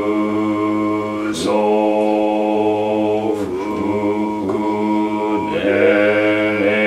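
Two men's voices chanting a Soto Zen verse in unison on one held monotone pitch, the line breaking briefly every second or two between phrases.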